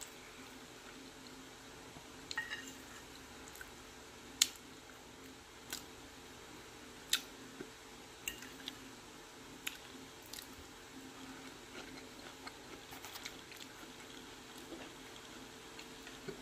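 Quiet mealtime sounds: chewing, with scattered sharp clinks of a metal fork against the plate, over a steady low hum.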